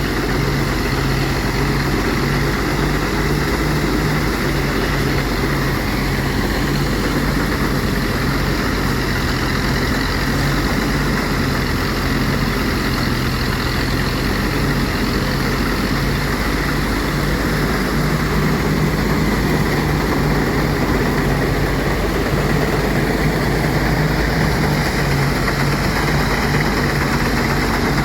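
Engine-driven rice threshing machine running steadily, a constant engine tone under the even noise of the machine.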